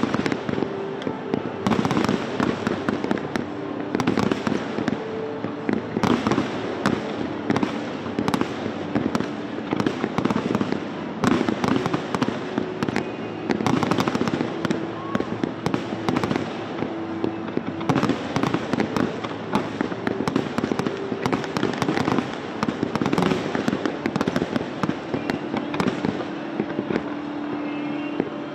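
Display fireworks shells bursting in a continuous barrage, with loud volleys of bangs about every two seconds and crackling in between.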